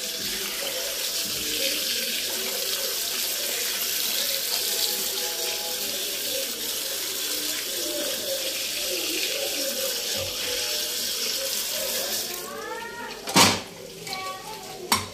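Tap water running into a steel bowl as cut eggplant and potato pieces are rinsed by hand. The water stops about twelve seconds in, and two sharp knocks follow.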